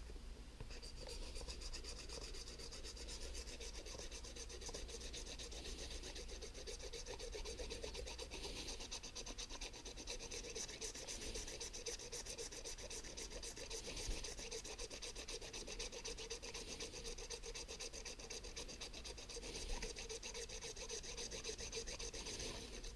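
A knife blade scraping the coating off a paper scratch-off card: a steady run of fast, fine scratching strokes.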